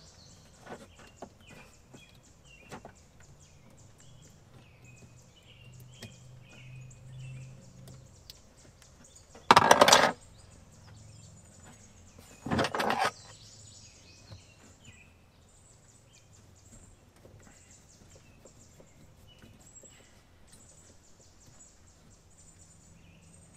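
Small clicks and rustles of hands working a hose clamp and hoses on a jet ski's oil injection lines with a pliers multitool, with birds chirping. Two loud, short bursts of noise a few seconds apart midway, each under a second long.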